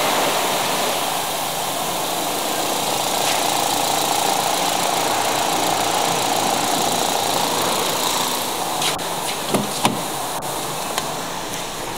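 Holden Cruze's 1.8-litre Ecotec four-cylinder petrol engine idling steadily with the bonnet open, with a few light knocks near the end.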